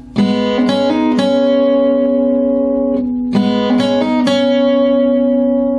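Acoustic guitar played fingerstyle: a short phrase of plucked notes on the upper strings with a hammer-on, each note left ringing. The phrase is played twice.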